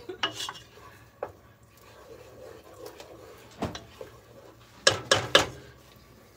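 Wooden spoon stirring in a metal saucepan of soup, with a few scattered knocks against the pan and a loud run of three or four knocks about five seconds in.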